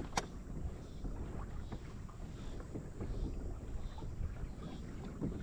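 Wind rumbling on the microphone over a tandem kayak at rest on the water, with small laps and knocks of water against the hull and a single sharp click just after the start.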